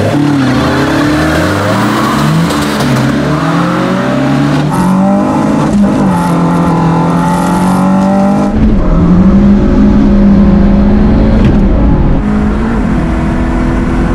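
Car engine accelerating hard from a standing start, its pitch climbing and dropping back at gear changes about five and six seconds in, then running at a steadier pitch. A deep rumble joins about eight and a half seconds in.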